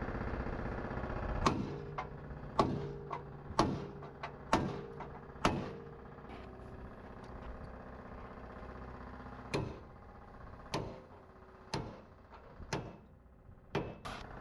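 An engine running steadily, with a series of sharp knocks on metal over it, about one a second for the first few seconds, then more widely spaced.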